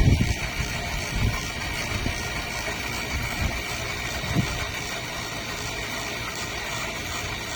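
Steady machine hum with a constant high whine, broken by a few low thumps over the first four and a half seconds, the strongest right at the start.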